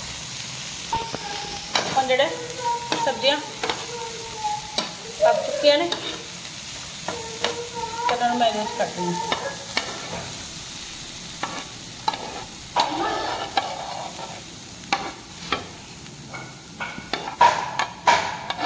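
Chopped onion, capsicum and tomato sizzling on a tawa while a steel spoon stirs them, with repeated scrapes and clicks of the spoon on the pan. Near the end the clicks come faster as the vegetables are scraped off the tawa into a glass bowl.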